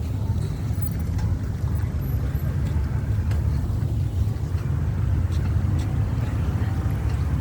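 Steady low rumble of a car driving, with engine and road noise.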